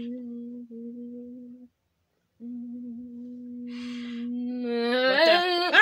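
A child humming one steady low note, a mouth imitation of an electric fan running. It breaks off for under a second in the middle, then resumes and rises in pitch near the end as it turns into speech.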